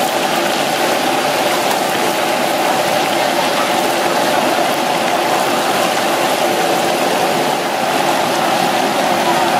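Egg-battered crab deep-frying in a wok of hot oil: a steady, dense sizzle of bubbling oil.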